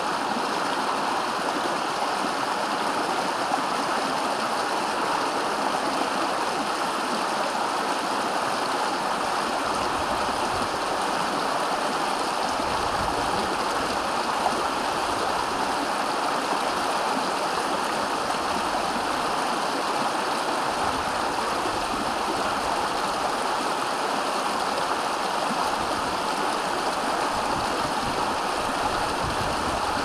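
Small mountain stream splashing down a short cascade over rocks: a steady, even rushing of water.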